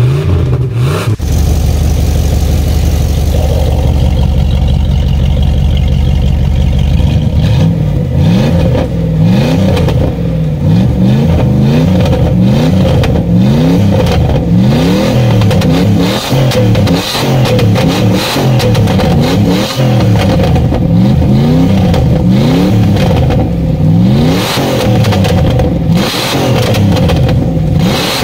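Jeep Grand Cherokee ZJ's 5.9-litre Magnum V8 running through a Magnaflow exhaust: a steady idle at first, then from about seven seconds in repeated throttle blips, the revs rising and falling about once a second.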